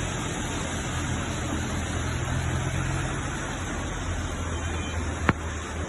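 A steady rushing noise over a low, steady engine-like hum, with a single sharp click about five seconds in.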